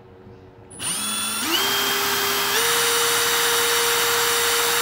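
Milwaukee M18 Fuel Surge hydraulic impact driver running free with no bit in work. Its motor starts up with a whine nearly a second in, steps up in speed twice, then runs steady.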